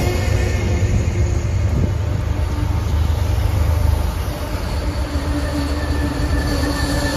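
MBTA commuter rail bilevel coaches rolling past at speed, a heavy steady rumble of wheels on the rails. A thin steady tone joins about five seconds in.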